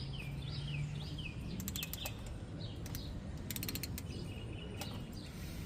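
Ratchet wrench clicking in two quick runs, about one and a half and three and a half seconds in, as it backs out a freshly cracked-loose oil drain plug. Small birds chirp repeatedly throughout.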